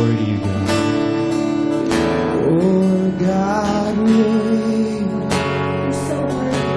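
Worship band music led by strummed acoustic guitar, with a voice singing a sustained melody over it.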